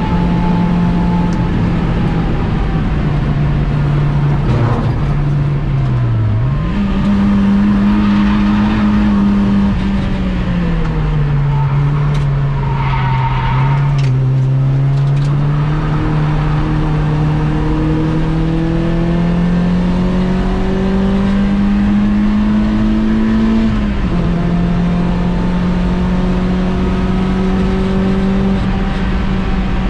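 Engine of a stripped-out VW Polo 6N1 track car heard from inside its bare cabin under hard driving. The pitch dips and then jumps up about six seconds in (a downshift), climbs slowly through the middle, and drops back about twenty-four seconds in as it shifts up.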